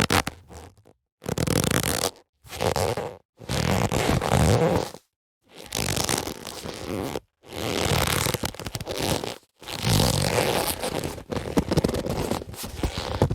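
Leather boxing gloves rubbing and creaking against each other in about eight separate scrapes, each a second or two long, with short pauses between them.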